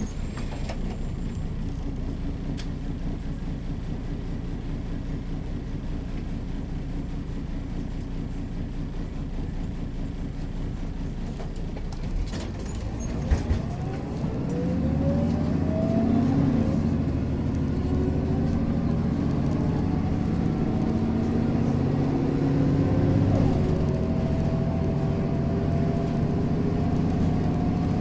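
Mercedes-Benz O405 city bus and its diesel engine running steadily. About halfway there are two sharp knocks, then the bus pulls away: the engine grows louder, with whines that rise in pitch as it accelerates.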